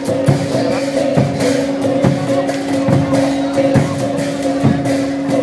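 Music with a steady held drone and a regular drumbeat, a little over two beats a second.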